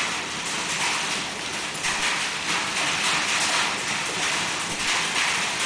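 Hailstorm: hailstones and rain falling steadily, a dense, even hiss made of countless small impacts.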